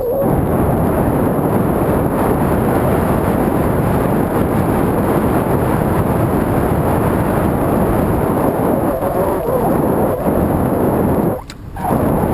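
Wind buffeting the microphone of a camera riding along on a mountain bike, a loud, dense rumble, with tyre and trail noise mixed in. It dips briefly near the end.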